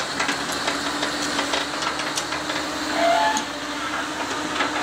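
Diesel engines of a backhoe loader and a loaded dump truck running together with a steady hum while the backhoe's bucket pushes the truck out of the mud and the truck pulls away.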